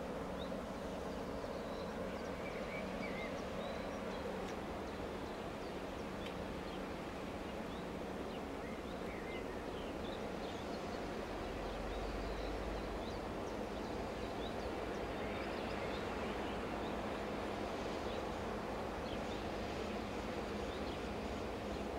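Steady low hum of a standing diesel locomotive idling, with small birds chirping over it.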